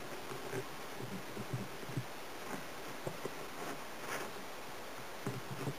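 Kitchen knife cutting a pan-fried Chinese pancake on a plastic cutting board: faint, irregular soft knocks and scrapes of the blade through the dough and against the board.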